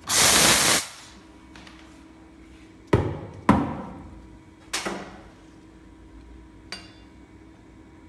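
Espresso machine steam wand purged with a short, loud hiss of steam lasting under a second. Then metal knocks: two sharp ones about half a second apart, another about a second later and a faint one near the end, as the stainless milk pitcher is tapped on the counter.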